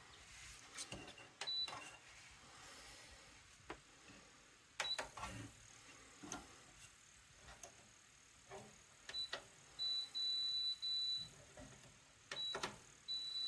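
Electronic beeps from an air fryer oven's control panel, some short and some held for about a second, all at the same high pitch. Scattered clicks and knocks of the appliance being handled come between the beeps.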